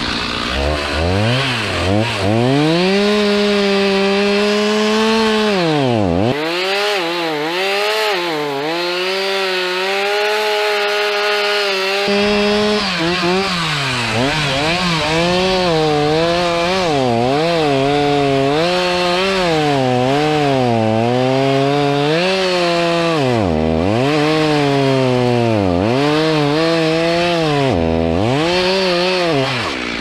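Stihl two-stroke chainsaw cutting into the trunk of a dead spruce at high revs, its pitch sagging and recovering as the chain bites into the wood. The engine drops briefly toward idle about six seconds in and twice in the last seven seconds, then revs back up.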